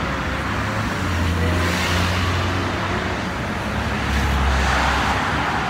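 Road traffic: cars passing on a busy street, their engine and tyre noise swelling about two seconds in and again near the end, over a steady low hum of traffic.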